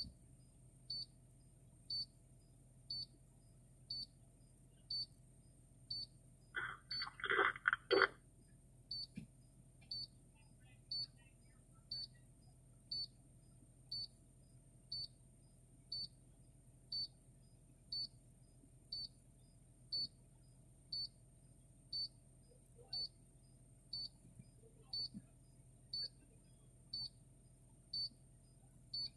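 Carbon monoxide meter in the command car beeping, a short high beep about once a second, repeated steadily. A brief louder burst of sound about seven seconds in.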